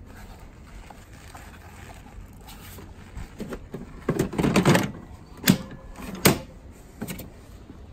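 EGO 56V batteries being slid into the battery bays of an EGO SNT 2100 snow blower: plastic scraping and rustling, then two sharp clicks a little under a second apart as the batteries latch in.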